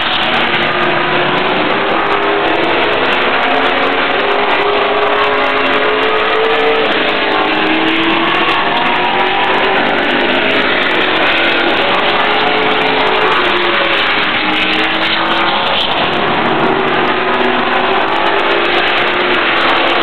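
Late model race car's V8 engine running practice laps on an oval track. Its pitch rises and falls again and again as it accelerates and lifts.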